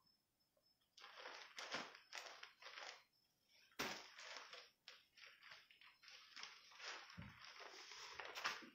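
Plastic wrapping crinkling and cloth rustling as a folded sador is unwrapped and shaken open by hand: irregular bursts of handling noise starting about a second in, with a short break near three seconds.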